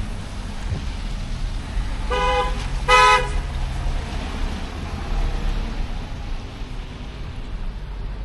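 A vehicle horn honks twice, two short beeps just under a second apart, the second louder, over a steady low street rumble.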